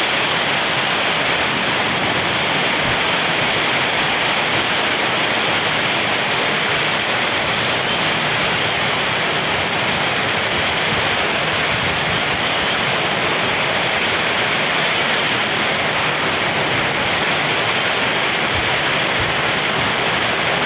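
Heavy rain falling steadily, an even rushing noise with no letup.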